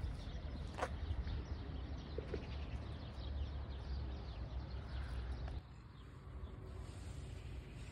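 Wind rumbling on the microphone, with faint bird calls. The rumble drops away abruptly about two-thirds of the way through.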